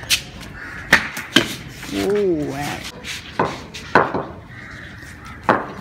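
Street cricket on concrete: a string of sharp knocks from the ball and wooden bat, six in all, with a boy's drawn-out shout about two seconds in.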